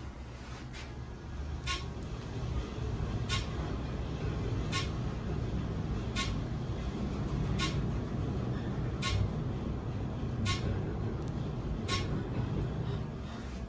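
Scenic elevator cab travelling down its hoistway: a steady low rumble of the moving car, with a sharp click about every one and a half seconds.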